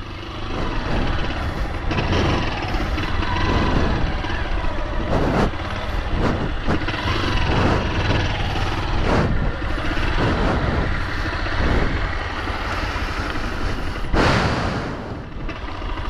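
Small motorcycle engine running at low speed as the bike rides over sand, under heavy wind noise on the microphone, with a brief louder gust near the end.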